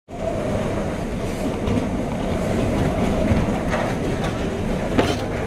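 Hurricane wind and driving rain: a loud, steady rush, with a faint whistle in the first few seconds and a sharp knock near the end.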